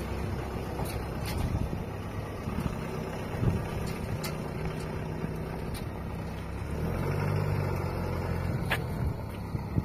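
Pickup truck engine running as the truck drives off slowly. The engine note swells louder about seven seconds in.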